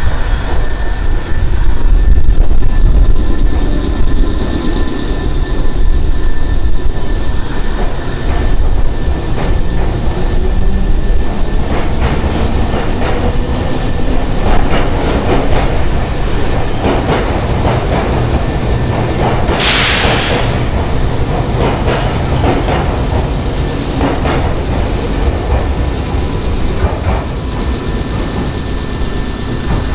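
Nankai 6000 series electric train running along the platform, with a steady low rumble and wheels knocking over rail joints. About twenty seconds in there is a short sharp burst of air hiss.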